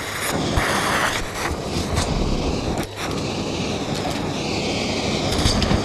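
Vacuum cleaner running steadily with a constant hum, with a few sharp clicks and rattles of small objects being sucked up.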